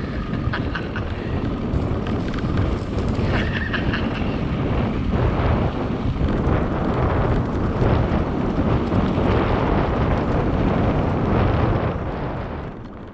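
Wind buffeting the microphone of a handlebar camera on a moving mountain bike, mixed with the rumble of the tyres rolling over a dirt track; steady and loud, fading out near the end.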